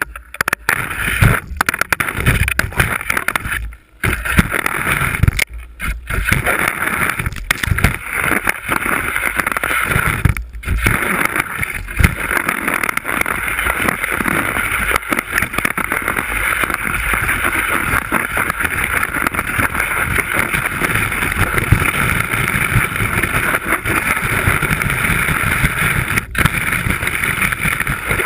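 Skis running over snow, heard from a camera mounted on the ski tip: a continuous rough hiss and scrape with wind rush, starting as the skier pushes off. It dips away briefly a few times in the first ten seconds or so, then runs on steadily.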